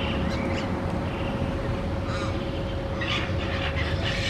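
Scavenging birds calling: short rising calls at first, then harsher, denser squawks from about three seconds in, over a steady low rumble and a constant hum.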